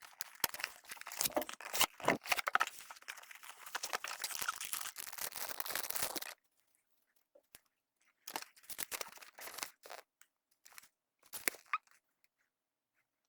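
Packaging being handled and torn open: dense crinkling and tearing that stops abruptly about six seconds in, followed by scattered short rustles and clicks.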